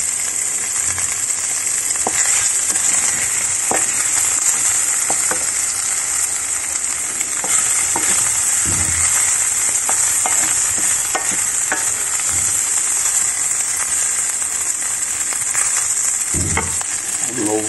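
Diced Cypriot wine sausages sizzling steadily in hot fat in a stainless steel frying pan, stirred with a wooden spatula, with scattered short pops and clicks over the hiss.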